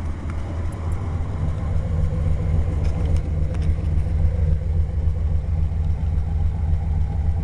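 1988 Chevrolet Silverado 1500 pickup's engine idling steadily, heard at the tailpipe through the stock exhaust, with newly installed exhaust manifolds.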